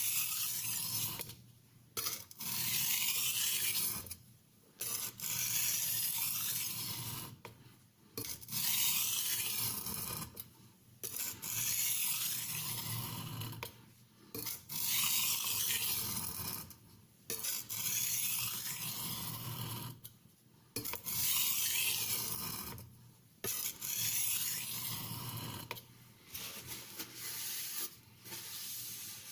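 Steel kitchen knife blade drawn repeatedly across an oiled Norton India Medium oilstone: about ten scraping strokes, each lasting about two seconds, with short pauses between them.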